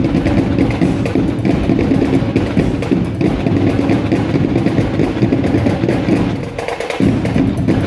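Live band music led by heavy drumming, including bass drum, playing loudly and continuously, with a brief drop in volume near the end before it comes back in.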